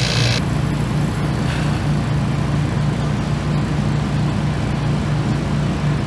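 Condensing unit of a True three-door reach-in freezer running, a steady low hum from the compressor and condenser fan. A hiss cuts off abruptly about half a second in.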